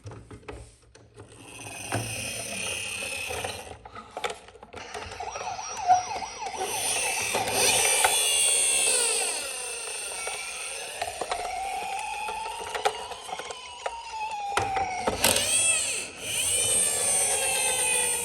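Emergency vehicle sirens: a few mechanical clicks, then several siren tones gliding up and down over one another from about six seconds in.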